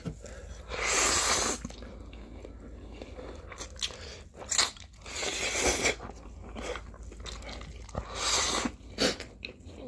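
People slurping spicy instant ramen noodles from chopsticks in several long, noisy slurps a few seconds apart, with chewing between.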